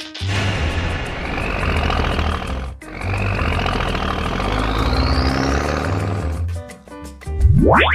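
Animated-cartoon soundtrack: background music under noisy sound effects with slowly rising whooshes, a short break near the three-second mark, and a fast upward zip near the end.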